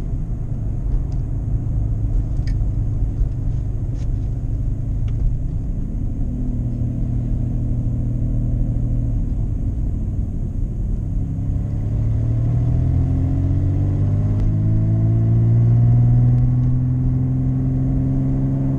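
1986 Pontiac Fiero GT's 2.8-litre V6 heard from inside the cabin while driving: a steady low drone with road rumble, then the engine note rises as the car accelerates about two-thirds of the way in and levels off near the end.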